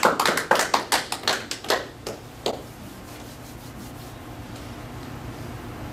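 Small audience applauding with scattered individual claps that thin out and stop about two and a half seconds in, leaving a steady low room hum.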